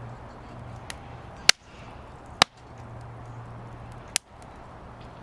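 Firewood burning in a fire pit, giving sharp pops: a faint one about a second in, loud ones near one and a half and two and a half seconds, and another just after four seconds. A steady low hum runs underneath.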